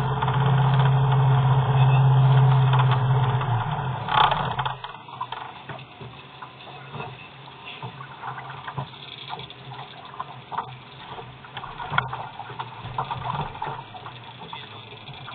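Boat engine running steadily at idle, then shut off about four seconds in with a sharp knock; afterwards only faint water sounds and small knocks against the hull remain.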